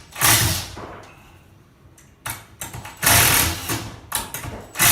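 A power tool run in three short bursts during carpentry work, each a fraction of a second to about a second long, with a fast mechanical rattle. Quieter stretches with light knocks lie between the bursts.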